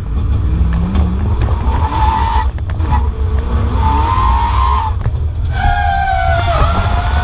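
Audi A4 2.0 4x4 STW race car's four-cylinder engine under hard acceleration, heard from inside the stripped, roll-caged cabin over a heavy rumble. The engine note climbs in pitch and breaks off twice, about two and a half and five seconds in, before picking up again.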